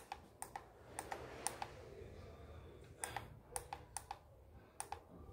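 Faint clicks of the push-buttons on an overlock sewing machine's digital control panel, pressed one after another, several in quick pairs, as the access code is keyed in to reach the parameter settings.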